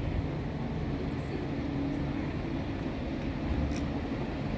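Buses running at low speed, a steady low hum as a single-deck bus pulls slowly into its stand beside another bus.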